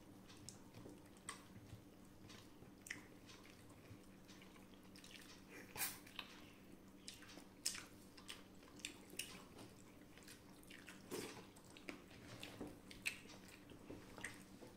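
Quiet eating by hand: soft chewing, with scattered small clicks and squishes as fingers mash rice and dal with pieces of crispy honey chicken on a steel plate. A faint steady hum runs underneath.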